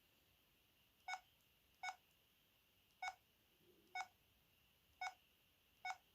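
VK530 mobile phone keypad beeping as keys are pressed: six short beeps, all at the same pitch, at uneven intervals.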